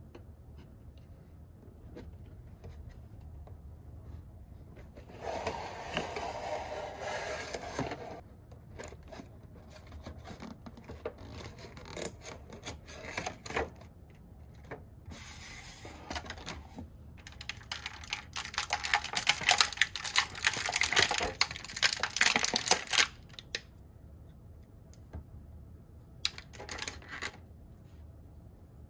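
Toy packaging being opened by hand: plastic crinkling and tearing in two longer bursts, with scattered clicks and taps of small plastic pieces being handled.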